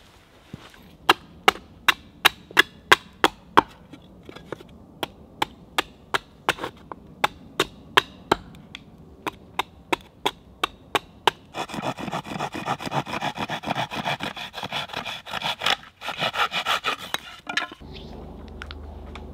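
Repeated sharp wooden knocks, about two to three a second, as a blade set in a block of wood is struck down on a chopping stump to split it. This is followed by several seconds of a denser, rougher wood-working sound.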